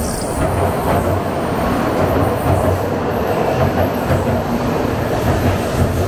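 An N700A Shinkansen train rolling slowly alongside the platform: a steady rumble of wheels on rail with a regular low beat.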